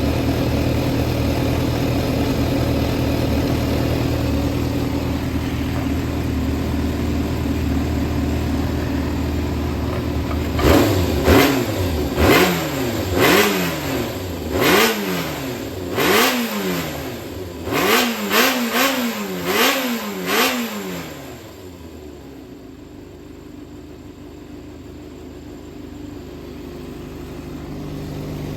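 Yamaha XJR400 (4HM) air-cooled inline-four engine idling steadily, then blipped about ten times in quick succession, each rev rising and falling, before settling back to a quieter idle. It runs cleanly, with no abnormal noise.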